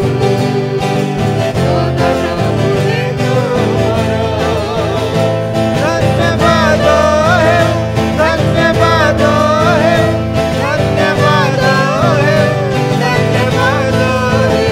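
Odia Christian worship song: a man and a woman singing over a twelve-string acoustic guitar. The singing grows stronger about halfway through.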